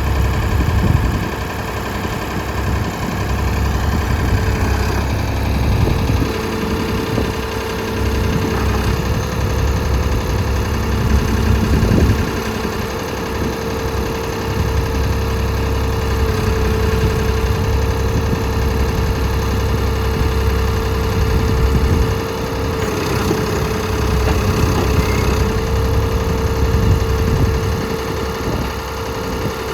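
Ford 555B backhoe's diesel engine running steadily, with a constant whine over the engine note and small rises and dips in level.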